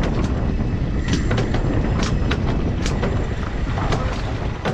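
Wind buffeting the microphone aboard a small boat at sea, over a steady low rumble, with irregular sharp slaps and splashes of water against the hull and outboards, a few a second.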